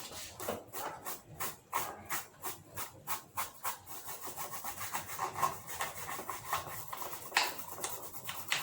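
A brush scrubbing dust off the parts of an electric fan in rapid back-and-forth strokes, about four a second, with a few harder strokes later on.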